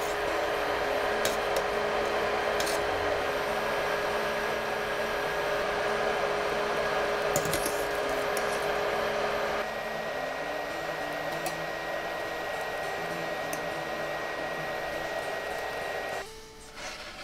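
Water at a rolling boil in a stainless steel pot on an induction hob, a steady rushing bubbling with a thin steady whine under it. There are a few light clicks of a wire strainer against the pot. The sound gets a little quieter about ten seconds in and drops away sharply near the end.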